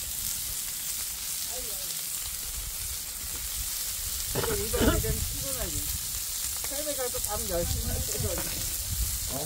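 Pork neck and belly meat sizzling on a hot stone grill, a steady frying hiss, with people talking over it from about halfway through.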